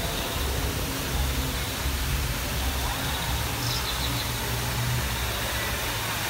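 Steady low rumble and hiss of ambient noise, with a short, rapid, high chirping trill of a creature call about three and a half seconds in.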